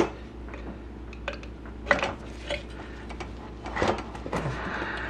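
Screwdriver prying and scraping at a split fork bushing on a motorcycle's steel inner fork tube: a string of sharp metallic clicks and scrapes, the loudest at the start, about two seconds in and near four seconds.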